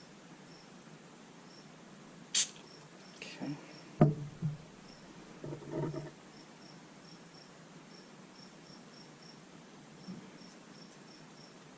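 A few sharp clicks and knocks of small carburetor parts and tools being handled on a workbench, the loudest about four seconds in. Faint short high chirps repeat irregularly throughout.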